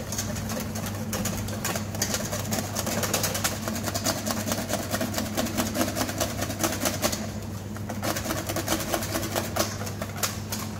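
Wire whisk beating egg-yolk sabayon in a stainless steel bowl over a bain-marie, its wires ticking rapidly against the metal as the mixture thickens. The whisking pauses briefly about seven seconds in, then picks up again, over a steady low hum.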